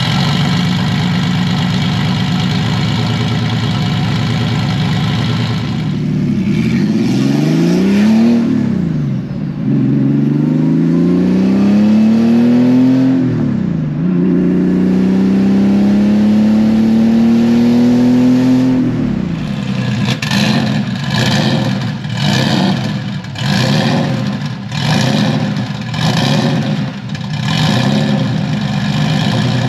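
Turbocharged, fuel-injected air-cooled flat-six of a Porsche 911 SC 3.0 running through a Zork tube straight-pipe exhaust. It idles steadily, then, heard from inside the cabin, pulls through the gears, the pitch rising in three long climbs that drop at each shift. It is then revved in a string of short blips, about one a second.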